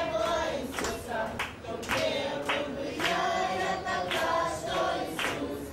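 A group of voices singing together, accompanied by rhythmic hand clapping at about two claps a second.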